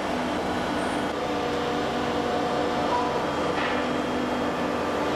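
Steady machinery noise of a moulding workshop, with faint held tones coming and going.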